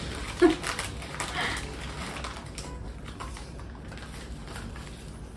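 Crisp crackling and rustling of a potato-chip packet being handled, busiest in the first two seconds and then fainter. A brief voice sound comes about half a second in.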